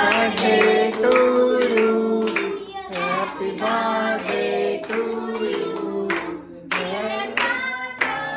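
A birthday song sung over instrumental music, with hands clapping along.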